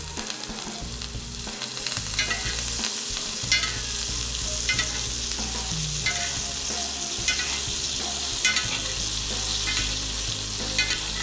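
Ribeye steak sizzling in foaming butter in a cast iron skillet while it is basted with a metal spoon. The spoon clinks and scrapes against the pan about once a second over the steady sizzle.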